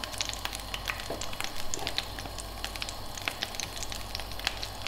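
Batter frying in hot rapeseed oil in a frying pan: a steady sizzle with many small scattered pops and spits.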